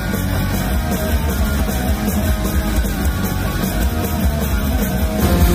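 A live rock band playing loud through an arena PA: guitars, a drum kit and heavy bass, heard from the audience.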